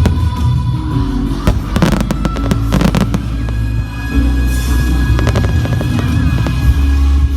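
Fireworks bursting and crackling in quick clusters, about one and a half to three seconds in and again around five to six seconds, over loud music with heavy low notes.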